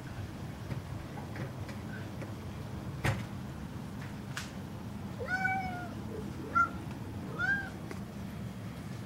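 Domestic cat meowing three times in the second half, short calls that rise and then fall in pitch. A sharp click sounds about three seconds in.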